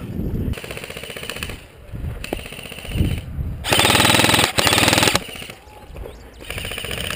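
Airsoft electric rifles firing on full auto in several short bursts of rapid clicks. The loudest and longest burst, about a second and a half, comes near the middle.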